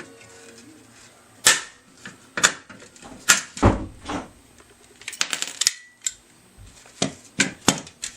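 Sharp metallic knocks and clinks of steel fan parts being worked and joined, about ten irregularly spaced strikes, a few ringing briefly, one with a heavier thud a little past the middle.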